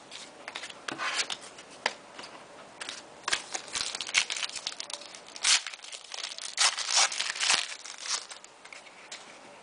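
Foil wrapper of a football trading-card pack being crinkled and torn open by hand: irregular crackling with a few louder rips a little past the middle.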